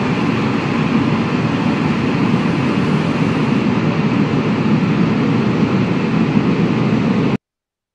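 Sound effect of an animated logo outro: a loud, steady rushing noise, strongest in the low range, that cuts off suddenly shortly before the end.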